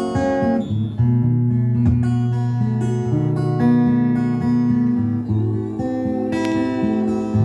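Morisson dreadnought acoustic steel-string guitar being played, chords and picked notes ringing out and overlapping.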